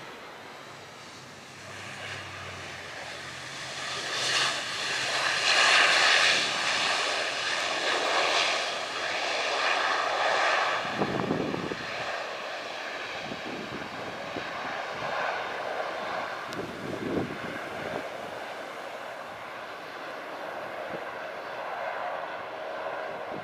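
ATR 72-600 turboprop's engines and propellers on the landing rollout: a droning whine that swells to a peak a few seconds in, then eases to a steadier drone.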